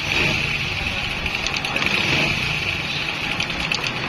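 Honda CD 70 single-cylinder motorcycle engine idling with a fast, steady ticking rattle from the timing chain. The chain is slack because the tensioner rod has gone bad and no longer holds pressure, not because the chain itself is worn.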